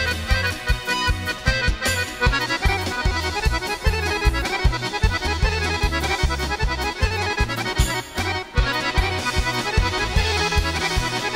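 Instrumental Serbian kolo dance tune: a fast accordion melody over a steady bass-and-drum beat, with a brief drop-out about eight seconds in.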